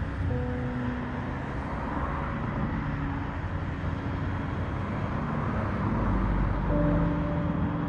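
Steady outdoor rumble and wind noise on a microphone mounted on a radio controller, with a few brief faint hums that shift in pitch.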